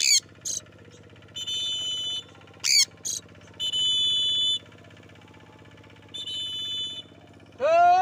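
Parrot squawking: short, harsh calls that slide in pitch, with steady shrill tones of about a second each in between and a louder rising call near the end.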